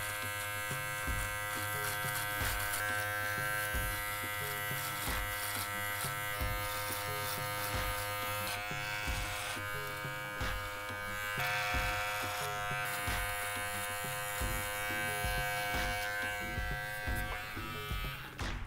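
Electric beard trimmer with a number one guard buzzing steadily as it cuts stubble, its pitch shifting slightly midway. It stops shortly before the end.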